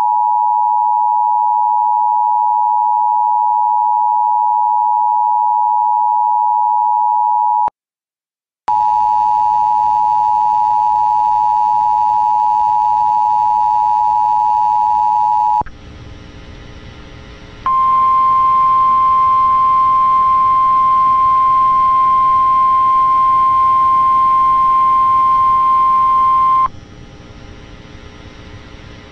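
Weather-radio alert tones. The two-pitch Emergency Alert System attention signal sounds steadily for about eight seconds and cuts off. After a second of silence, a second two-pitch attention signal plays over radio static for about seven seconds. After a brief stretch of static, the single-pitch NOAA Weather Radio 1050 Hz warning alarm tone sounds for about nine seconds, then gives way to static.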